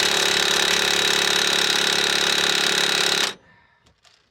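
Cordless impact wrench hammering steadily on a rusted rear shock bolt, then cutting off suddenly about three seconds in. The bolt is seized and does not loosen, even after penetrant fluid.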